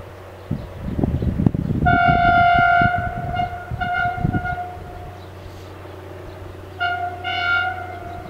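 TCDD DE 24000 diesel locomotive's horn sounding on one steady note: a long blast about two seconds in, a couple of shorter toots after it, then two more short toots near the end.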